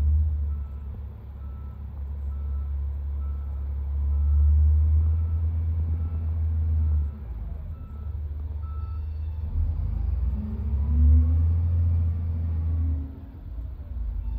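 SDLG L953 wheel loader's diesel engine running with a steady low drone while its reversing alarm beeps about one and a half times a second. The beeping stops about nine seconds in. The engine then comes under load and grows louder as the loader drives forward and pushes its bucket into the sand pile.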